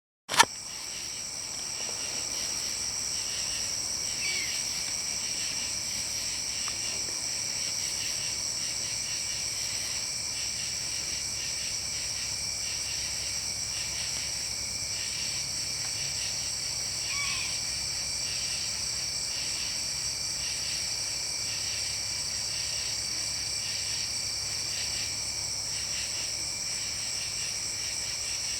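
Steady high-pitched chorus of insects, trilling without a break, with a faster pulsing layer beneath it. A short chirp sounds about four seconds in and again about seventeen seconds in, and there is a sharp knock at the very start.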